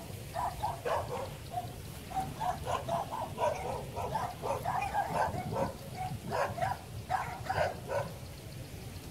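Many short animal calls, irregular and overlapping, repeating throughout.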